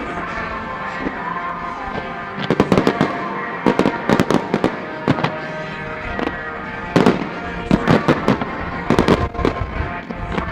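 Aerial fireworks bursting in quick clusters of sharp bangs and crackles, a fresh volley every second or so, over music playing steadily.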